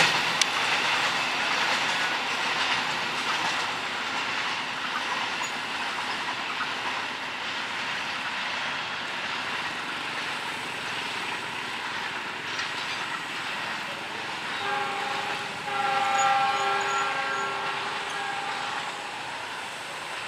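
Fully loaded freight train's flatcars rolling away on the rails, the clatter slowly fading as the train recedes. Near the end a train horn sounds for about four seconds, in a few broken pieces.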